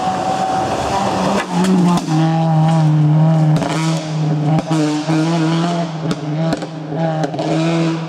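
Peugeot 206 rally car passing at speed and pulling away, its engine held at high revs in a steady note. A few sharp cracks sound over it.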